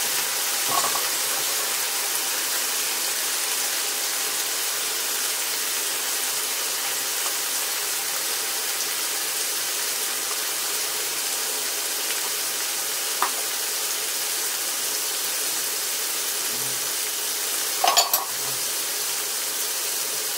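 Shiitake mushrooms and onions sizzling steadily in a frying pan, simmering in a ladle of pasta water. A few light knocks, a small cluster of them near the end.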